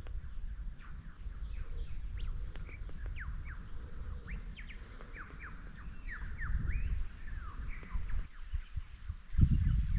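Several birds chirping and calling with many quick rising and falling whistles, over a low rumble. The sound shifts abruptly about eight seconds in, and a louder low rumble comes near the end.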